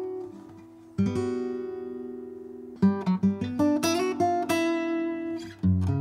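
Background music on acoustic guitar: a strummed chord about a second in, left to ring, then a run of picked notes.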